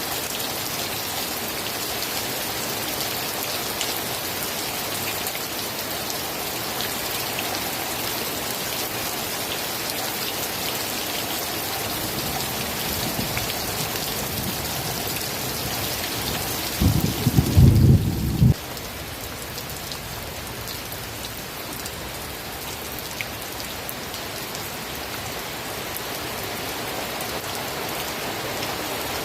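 Steady rain falling. Past the middle a low rumble of thunder builds and peaks loudly, then cuts off suddenly, and the rain carries on a little quieter.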